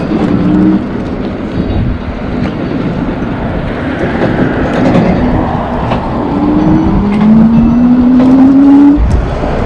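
Wind buffeting the microphone and tyre rumble while riding a fat-tyre electric bike, with a whine that rises in pitch near the end.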